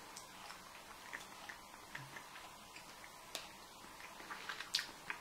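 Faint, scattered small clicks and mouth noises, with a brief low hum about two seconds in and a couple of sharper clicks near the end, as a small taste of Marmite is eaten.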